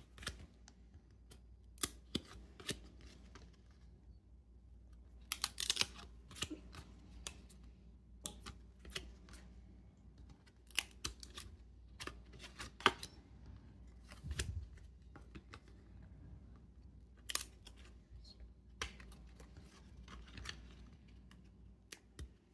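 A stack of glossy Stadium Club football trading cards being thumbed through and peeled apart one by one: irregular soft clicks and slaps of card on card, some cards sticking together.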